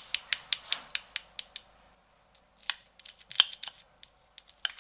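Metal teaspoon tapping on the hard caramelized sugar crust of a crème brûlée in a ceramic ramekin: a quick run of light taps, about five a second, fading out over the first second and a half, then a few scattered sharper clicks, the loudest about three and a half seconds in, as the spoon presses on the crust.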